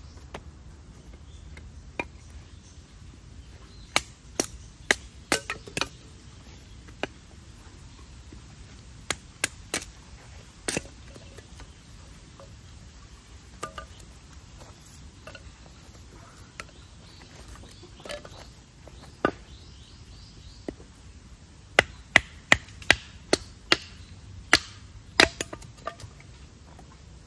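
Hatchet chopping and splitting kindling on a wooden chopping block: sharp, irregular chops, each a crisp wooden crack, with a quick run of about six strikes near the end.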